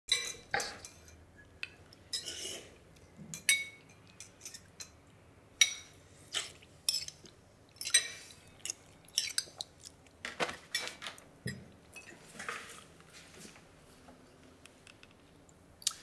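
Metal spoons clinking and scraping against ceramic soup bowls as several people eat, in many irregular, sharp taps.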